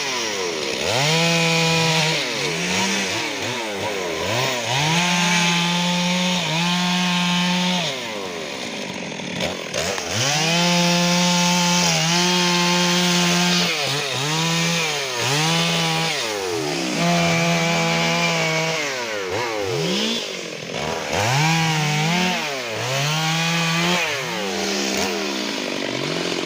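Stihl MS 382 two-stroke chainsaw cutting a large tree. The engine is held at full throttle for stretches of a second or two and repeatedly drops sharply in pitch and revs back up.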